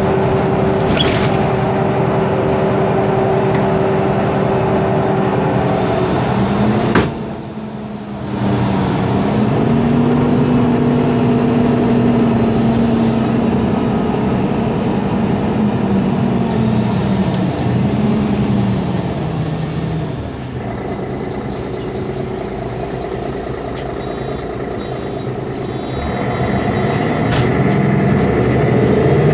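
Mercedes-Benz Conecto G articulated bus's OM457LA diesel engine and drivetrain running under way. About seven seconds in there is a sharp click and a short drop in level, after which the pitch rises and falls again. The engine eases off around twenty seconds in and picks up again near the end.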